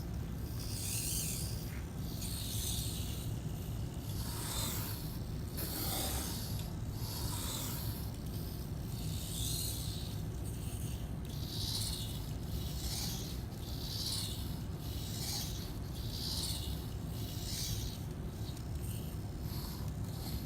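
Robix robot arm working a pencil: rhythmic scratchy, rasping strokes about once a second over a steady low hum.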